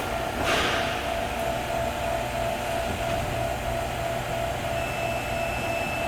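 Steady mechanical drone with a constant hum and a held mid tone, with a brief whoosh about half a second in.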